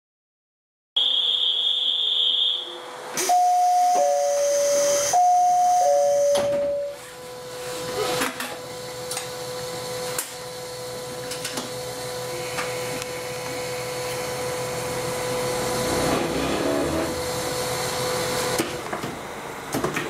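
Cab of a KiHa 40 diesel railcar: a short high beep, then a two-note falling chime sounded twice over a steady tone. It is followed by the railcar's engine running with a steady hiss that grows slowly louder, and scattered clicks from the driver's controls.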